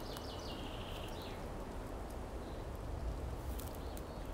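Quiet outdoor ambience: a steady low rumble and hiss like wind over open ground, with faint footsteps through dry grass and a brief faint high sound near the start.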